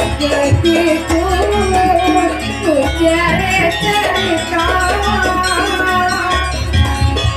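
Live Javanese jaranan music: a wavering melody line over a steady low beat.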